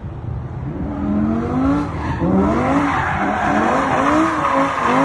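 Car tyres screeching in a drift: a sustained squeal that wavers up and down in pitch and grows louder about a second in.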